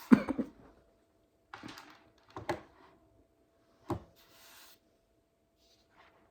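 A person hiccupping three times in about four seconds, each hiccup a sudden short catch with a brief voiced sound. The first, right at the start, is the loudest.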